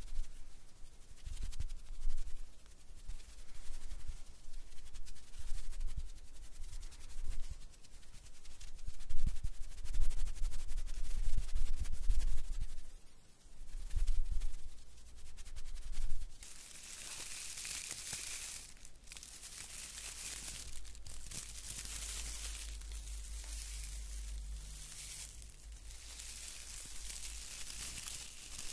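Hands moving close to the microphones make irregular low thumps and brushing for about the first sixteen seconds. Then comes steady crinkling rustle from the plastic needles of a small artificial pine wreath handled right at the mics.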